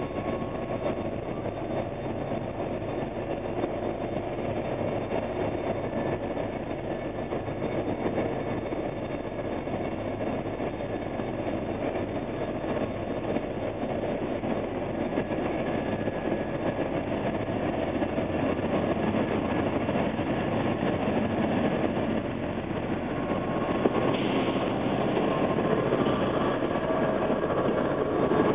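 Irish Rail 201 Class diesel locomotive's EMD two-stroke V12 engine working steadily as it pulls slowly out with its train, growing louder as it draws near. Near the end its carriages roll past.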